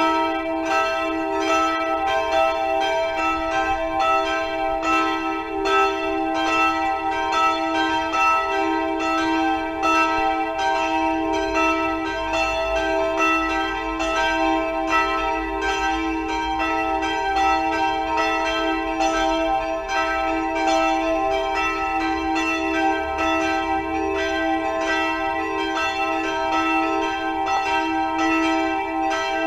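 Church bells ringing in a continuous peal: several bells of different pitches sounding together, their strokes coming a few times a second and overlapping into a steady ring.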